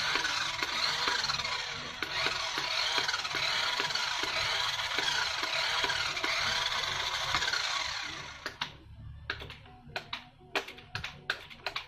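Toy radio-controlled tractor's small electric drive motors and plastic gearbox whirring steadily as its wheels spin in the air, stopping about eight seconds in; after that come light plastic clicks and taps as the toy is handled.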